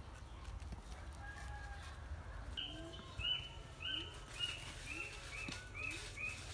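A bird calling repeatedly, starting about two and a half seconds in: short, even notes at about two a second. Faint scrapes and knocks of trowels and concrete blocks sound underneath.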